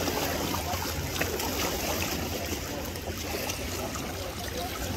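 Lakeshore ambience: lake water lapping and trickling at the edge, with faint voices of people around and a low steady rumble underneath.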